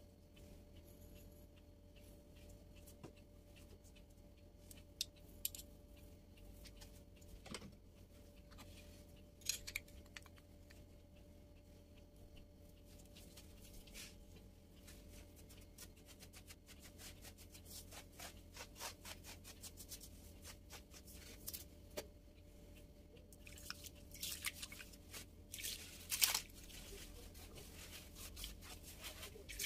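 Scattered clicks, taps and rustles of ingredients and utensils being handled for bread dough, with a denser, louder spell of rustling and scraping near the end, over a faint low hum.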